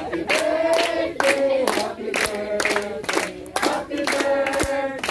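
A group of people singing together, clapping their hands in time at about two to three claps a second.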